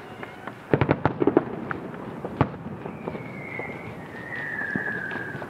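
Fireworks bursting: a quick cluster of sharp bangs and crackles about a second in, then a single bang near the middle. Two high whistles, each falling slightly, follow later.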